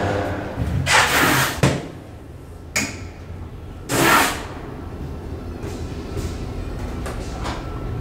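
Large freight elevator with no car doors setting off: several knocks and rattles in the first four seconds, then a steady low hum as the car travels up the shaft.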